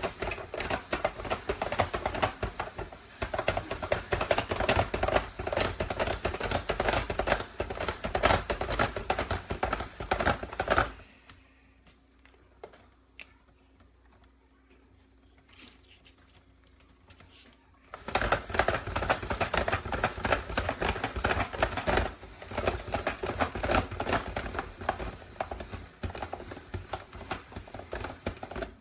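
Hand-crank spiralizer cutting a zucchini into noodles: a fast, dense crunching and clicking as the crank is turned and the blade shaves the zucchini. It stops about 11 seconds in and starts again about 7 seconds later.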